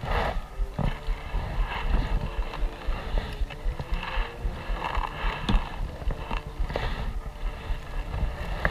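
Kayak paddle strokes: the blades dipping and splashing in calm water every second or so, over a low wind rumble on the camera microphone.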